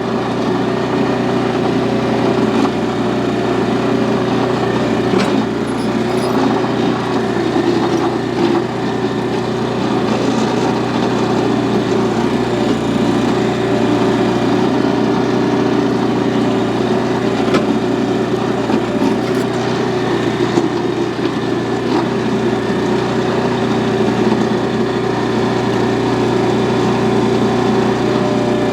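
Small gasoline engine of a Harbor Freight towable backhoe running steadily while it digs in hard, dry, gravelly soil, with a few short knocks scattered through.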